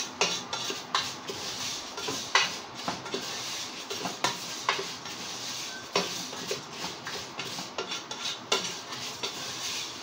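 Dry vermicelli being stirred and tossed in hot oil in a nonstick pot with a slotted spoon as it browns: irregular scraping and knocking of the spoon against the pot over a light frying hiss.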